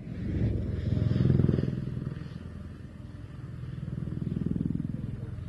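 Aérospatiale Dauphin helicopter's four-bladed main rotor chopping in a fast, even beat over the turbine noise, swelling in loudness about a second in and again near the end.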